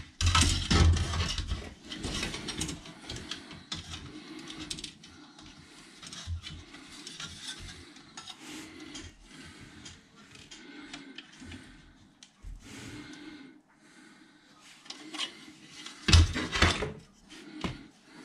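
Plastic model-kit parts trees being handled: irregular clicking, rattling and rubbing of plastic parts, loudest in the first couple of seconds and again about 16 seconds in.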